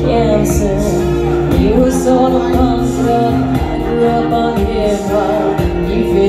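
A woman singing karaoke over a loud backing track with a steady beat.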